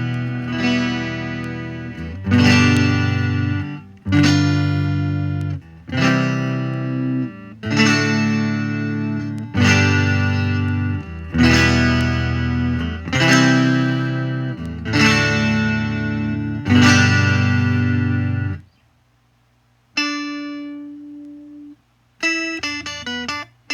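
Rickenbacker 360/12-style electric twelve-string guitar strumming chords, one struck about every two seconds and left to ring, about ten in a row. The strumming stops, a softer single chord rings about twenty seconds in, and quick short picked notes start near the end.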